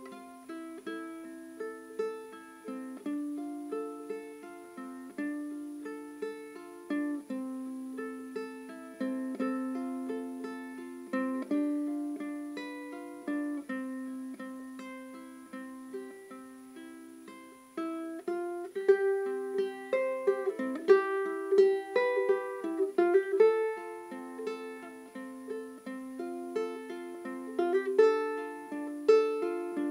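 Light instrumental background music of quick plucked-string notes with no bass, getting noticeably louder a little past halfway.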